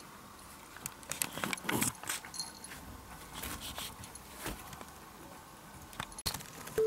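A cat tearing and chewing blades of cat grass from a pot: a run of irregular, crisp crunching clicks.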